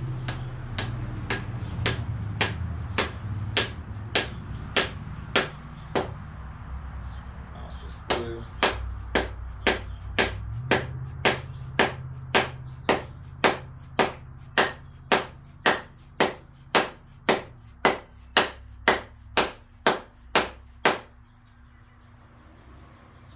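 Mallet blows driving a glued poplar wedge into the eye of a wooden axe handle to lock the head on. The sharp strikes come steadily about two a second, pause briefly about six seconds in, then run on and stop a couple of seconds before the end. The wedge is driving in well.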